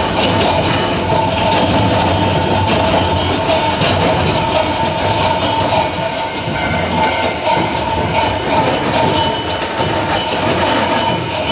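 Running noise of a Sangi Railway Hokusei Line narrow-gauge (762 mm) electric railcar, heard from inside the car: wheels rumbling on the rails with steady whining tones over them.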